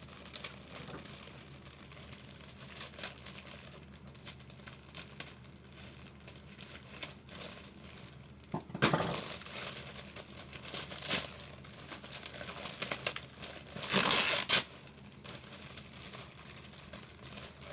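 Toy packaging crinkling and rustling as the toy is unwrapped. There are a few louder bursts, one about nine seconds in and the loudest about fourteen seconds in.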